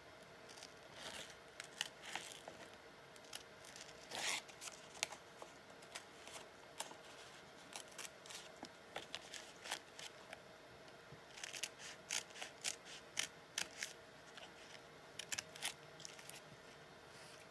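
Scissors cutting through fabric: irregular short snips, with quick runs of several cuts about eleven to thirteen seconds in and again near the end.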